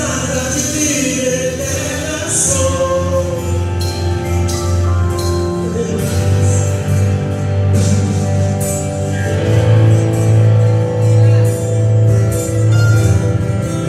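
Live gospel worship band playing a song with singing: acoustic guitar, keyboard, bass and drums.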